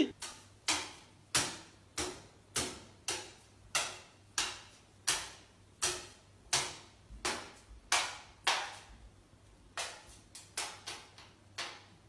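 A series of sharp taps, about one every two-thirds of a second, with a short pause near the end followed by a quicker run of taps.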